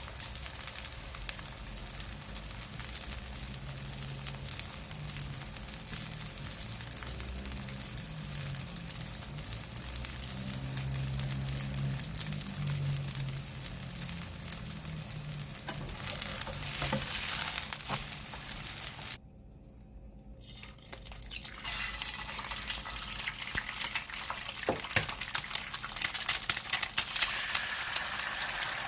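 Food frying in hot oil in a pan, a steady sizzle with dense crackling. It cuts out abruptly for about a second about two-thirds of the way through, then comes back with sharper pops near the end.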